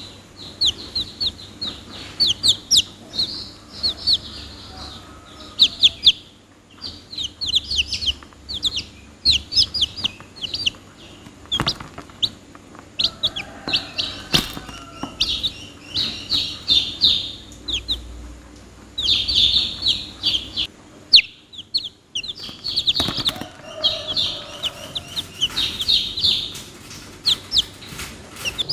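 A group of domestic chicks peeping continuously: many short, high-pitched cheeps overlapping in quick runs, with brief lulls.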